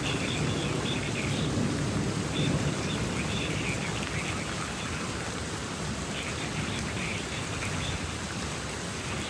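Steady rain falling, an even hiss of noise, with brief high-pitched sounds coming and going over it.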